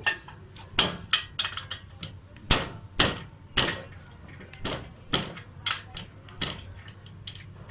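Steel spanners clinking and knocking against the scooter's front axle nut and stud as the nut is worked loose, a dozen or so irregular metallic clinks, some ringing briefly.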